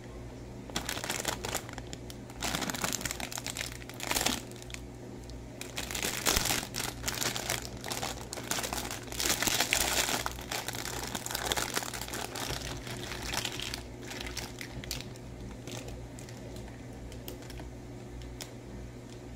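Thin clear plastic bag crinkling and rustling in the hands as it is opened, in loud irregular bursts. In the last few seconds it settles into fainter rustles and small clicks of the plastic toy pieces being tipped out.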